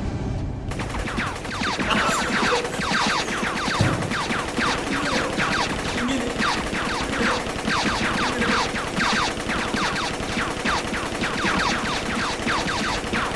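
Long, unbroken run of rapid gunfire sound effects from an action film's soundtrack, many shots a second, starting about half a second in.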